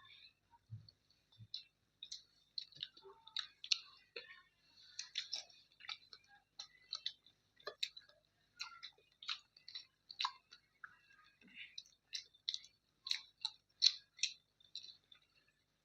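Close-up mouth sounds of someone eating chicken curry with rice: wet chewing and lip-smacking clicks, irregular, several a second.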